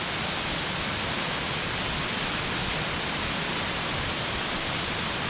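Waterfall rushing, a steady, unbroken wash of water noise.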